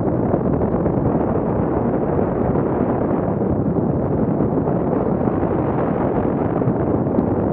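Wind buffeting the microphone of a camera riding on a mountain bike as it moves along a forest trail: a steady, loud low rumble.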